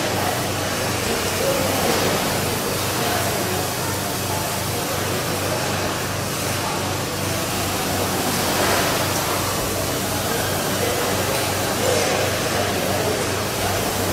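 Machinery of a rotary milking parlour running: a steady low hum under an even hiss, with no clear rhythm or break.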